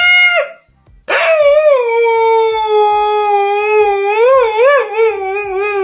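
Siberian husky howling: a short call that breaks off about half a second in, then after a brief pause one long howl that starts high, settles lower and wavers up and down near the end.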